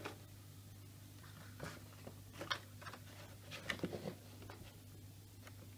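Soft rustles and light taps of a picture book's cover and pages being opened and pressed flat by hand, a cluster of them in the middle, over a faint steady electrical hum.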